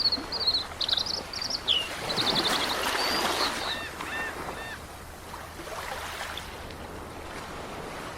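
Small birds chirping in quick trills, then four short honking calls, over a steady wash of noise like surf that eases in the second half.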